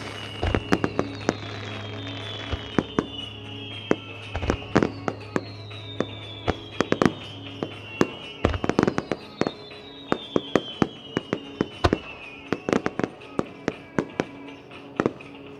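Starmine fireworks bursting in rapid succession, a dense run of sharp bangs and crackling pops several a second, over the music track that accompanies the display, with sustained tones and a high tone that falls slowly three times.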